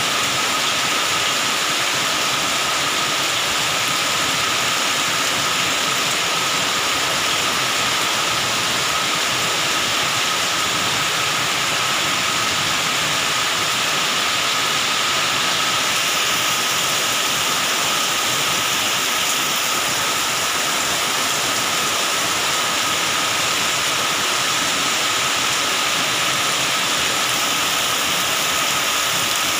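Heavy cyclone rain pouring steadily onto open ground and trees, a dense, even rush of noise that does not let up.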